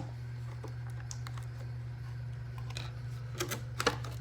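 Action figure packaging being handled: scattered sharp clicks and taps of the plastic and cardboard box, bunching together near the end, over a steady low hum.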